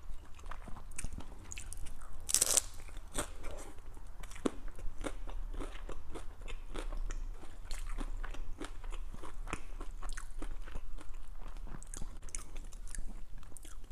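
Crisp crunching and chewing of a Taco Bell Doritos Locos hard-shell taco, close to a lapel microphone: a steady run of sharp shell crunches, the loudest bite about two and a half seconds in.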